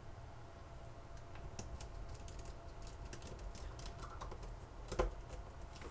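Small screwdriver driving screws into a cell phone's plastic housing: a run of light, irregular clicks and ticks, with a louder click about five seconds in.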